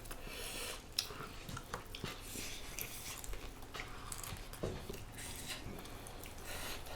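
Faint mouth sounds of chewing crispy deep-fried pork leg, with scattered soft clicks.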